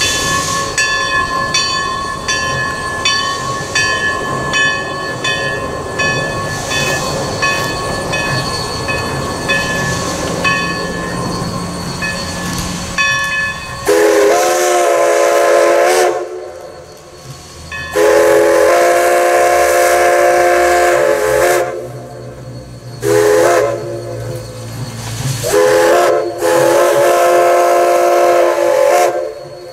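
A bell ringing steadily, then the chime whistle of Everett Railroad's Alco No. 11, a 2-8-0 steam locomotive, blowing long, long, short, long: the grade-crossing signal.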